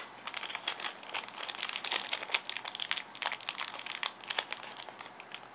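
Small plastic parts bag crinkling and crackling in irregular bursts as it is opened and a part is taken out by hand, busiest in the middle.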